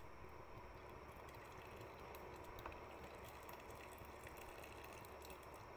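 Faint bubbling and crackle of shrimp-paste gravy simmering in a pot, with one light tap about halfway through.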